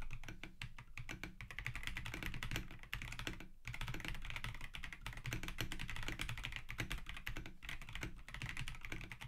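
Fast continuous typing on an Akko PC75B Plus Air mechanical keyboard with stock Akko CS Air linear switches, PBT keycaps, a polycarbonate plate and foam-dampened case. There are short pauses in the keystrokes about three and a half seconds and seven and a half seconds in.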